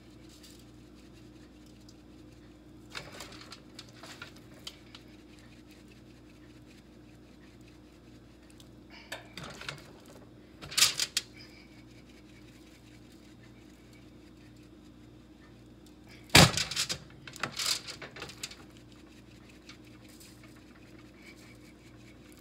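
Spice shaker bottles being shaken over raw chicken and handled, giving scattered short clicks and rattles, with a sharp knock past the middle as the loudest sound. A steady low hum runs underneath.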